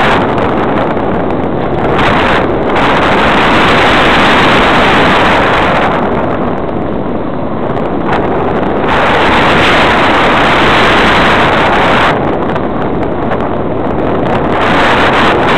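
Loud rushing airflow over the microphone of a camera mounted under the wing of a flying radio-controlled model motor glider, easing off and swelling again every few seconds.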